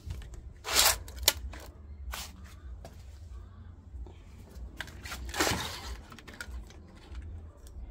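Handling noise: scattered sharp clicks and knocks, with two brief rustling scrapes about a second in and about five and a half seconds in, over a low steady hum.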